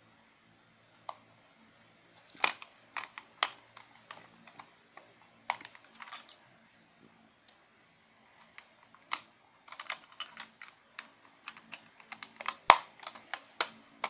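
Irregular plastic clicks and knocks from handling a small toy-drone remote control: its battery compartment being worked and an AA battery taken out and put back. The clicks come in small clusters, thicker in the second half, with one sharper knock near the end.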